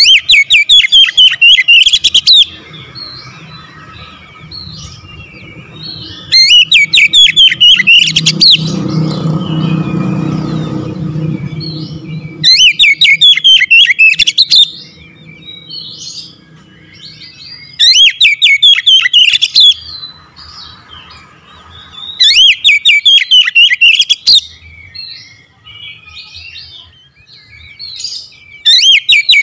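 Caged Oriental magpie-robin (kacer) singing in loud bursts of rapid, high, varied notes. Each burst lasts about two seconds and they come about every five seconds, with softer scattered notes in between. A low rumble rises and fades in the background between the second and third bursts.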